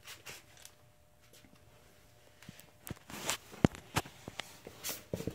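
Irregular handling noise: scattered clicks, knocks and rustling, growing busier and louder about three seconds in.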